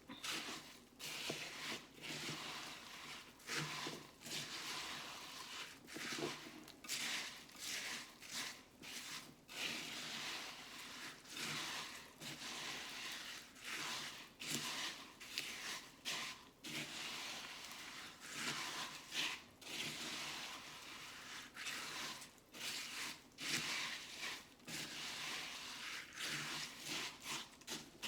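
Spoon stirring a chocolate crackles mix of Rice Bubbles and melted copha in a bowl: crackly scraping strokes repeated irregularly, about one or two a second.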